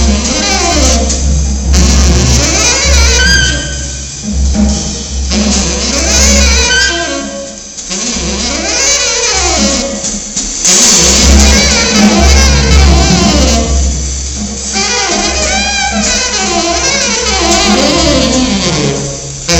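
Jazz saxophone and drum kit playing together live. The tenor saxophone plays winding melodic phrases over ride-cymbal wash and drum hits.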